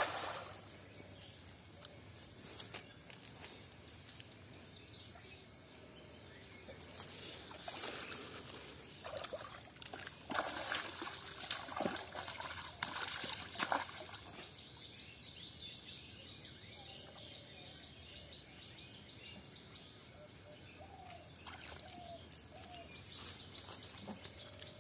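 Pond water splashing, sloshing and trickling as a cast net is hauled in through the shallows by hand. It opens on the tail of the splash of the net landing on the water, and the splashing comes in bunches around the middle, then quietens.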